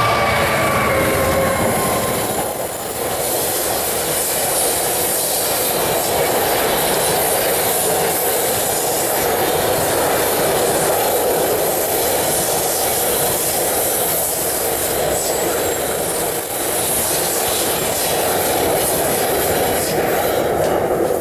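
Loaded coal wagons of a freight train rolling past at speed: a steady rumble and rush of wheels on rail with a high wheel squeal running through it. A pitched drone fades out in the first couple of seconds.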